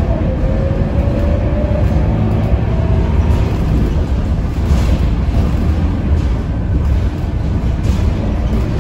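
Scania K230UB bus with its five-cylinder diesel engine under way, heard from inside the passenger cabin: a steady low rumble. A faint whine rises slightly in pitch over the first few seconds.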